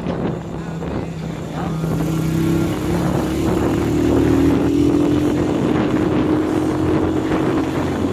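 Motorcycle engine running under load while climbing a hill, its pitch rising about two and a half seconds in and then holding steady.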